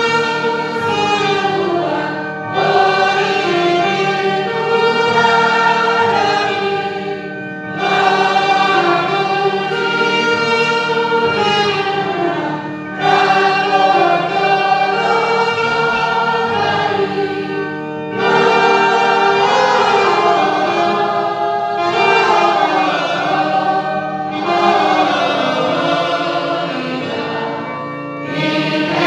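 A choir singing a Christian hymn in phrases about five seconds long, with a brief pause between phrases.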